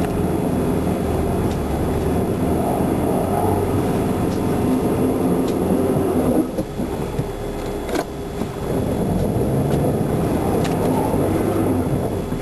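A car being driven: a steady low rumble of engine and road noise, with a few light clicks or knocks. The rumble drops briefly about six and a half seconds in.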